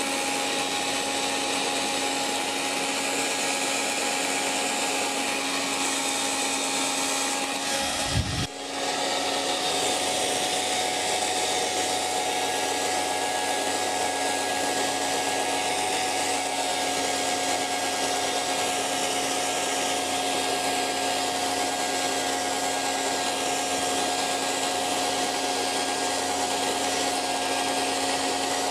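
Hair dryer running steadily: an even rush of blown air with a constant motor whine. About eight seconds in comes a brief low thump and a momentary dip, after which the motor's pitch sits slightly lower.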